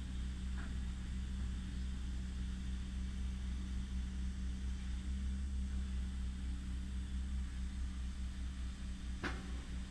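Excavator engine running steadily at debris clearance, a low, even hum, with a single sharp knock about nine seconds in.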